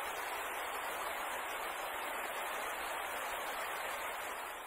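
Steady hiss of noise, fading out near the end: the 'space sound' presented as the sound of Uranus's moon Stephano.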